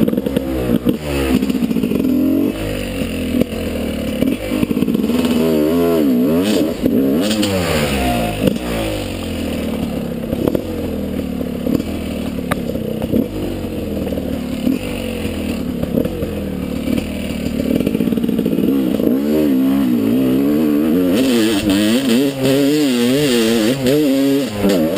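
Two-stroke 300 cc enduro motorcycle engine (GasGas 300) running under constantly changing throttle on a rough dirt trail, its pitch rising and falling again and again as it revs and drops back, with occasional knocks from the bike over the ground.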